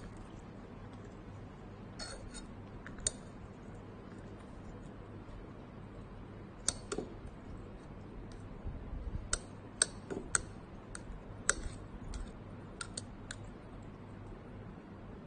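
Metal utensil knocking and scraping against a ribbed drinking glass while stirring pieces of cassava-based bioplastic dissolving in water: irregular sharp clicks, a few early and a quicker run of them in the second half.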